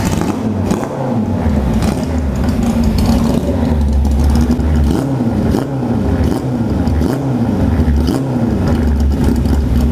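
Custom Riva 600 motorcycle's four-cylinder engine running and being revved up and down in short repeated blips, about once or twice a second. It is running on an unfinished exhaust with no tip fitted yet.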